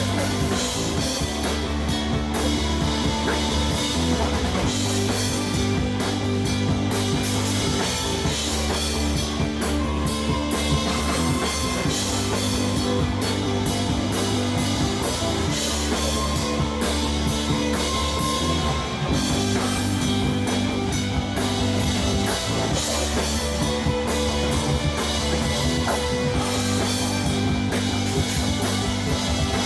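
Instrumental rock music with drum kit and guitar, held chords changing every couple of seconds at a steady loudness.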